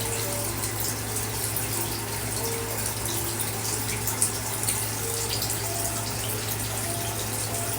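Steady rush of flowing river water, with a constant low hum beneath it.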